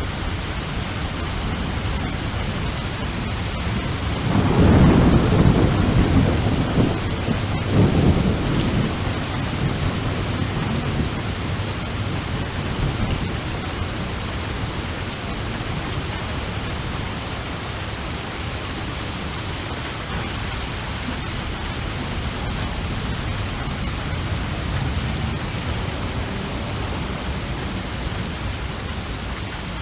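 Steady rain with a roll of thunder about four seconds in: a low rumble that swells twice and then fades back into the rain.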